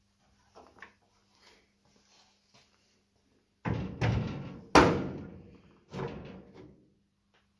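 Steel door of a 1927 Ford Model T runabout body clanking against the body as it is fitted onto its hinge pins: a few light taps, then four loud metal clanks with ringing, the third the loudest.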